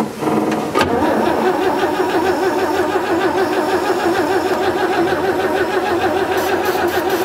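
1940s Chevrolet truck's gasoline straight-six being turned over by its starter, cranking with an even rhythm without catching. The ignition is giving no spark.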